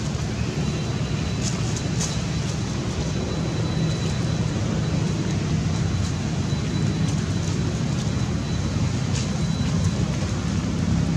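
Steady low rumble of outdoor background noise, with a few faint clicks.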